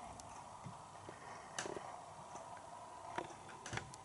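Faint scattered clicks, taps and rustles of hands cleaning an old film projector with cotton swabs and paper towel, a few sharper clicks about one and a half seconds in and near the end, over a faint steady hum.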